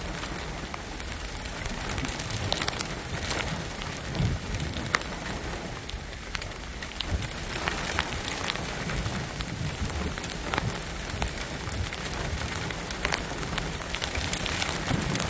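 Steady rain falling, with many scattered sharp taps of drops hitting a surface close by.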